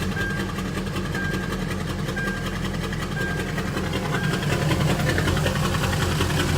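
Diesel truck engines idling while warming up, with a steady clattering hum that grows louder about four and a half seconds in. A short high beep sounds about once a second through the first few seconds.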